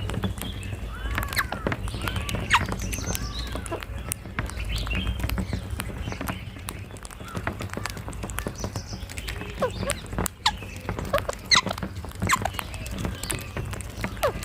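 Rose-ringed parakeets calling: many short, shrill squawks and arching calls, overlapping, over a low steady rumble.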